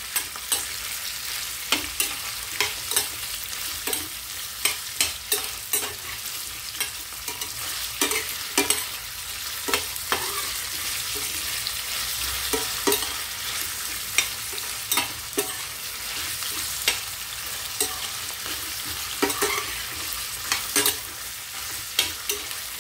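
Sliced onion and garlic sizzling in oil in a small stainless steel pan while being sautéed, with a metal spoon scraping and clinking against the pan as it stirs, about once or twice a second.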